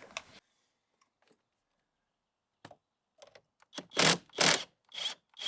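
A handful of short knocks and clicks from tools and battery hardware being handled, the loudest two close together about four seconds in.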